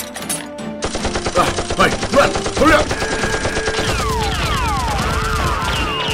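Rapid automatic gunfire sound effect for a Nerf blaster shootout, starting about a second in. From about four seconds in it is joined by repeated falling whistling glides, like bullets whizzing past.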